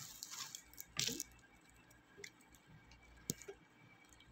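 Soy sauce poured from a bottle onto raw chicken pieces in a bowl: faint wet splashing, with two brief louder noises, one about a second in and a sharp click a little after three seconds.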